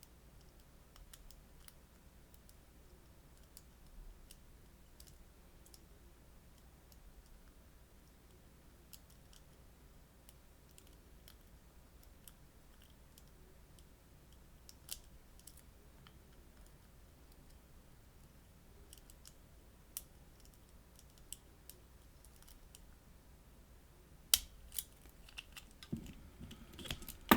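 Faint, scattered metallic clicks of a pick working the wafers of a cheap wafer-tumbler lockout padlock, with a few sharper, louder clicks near the end.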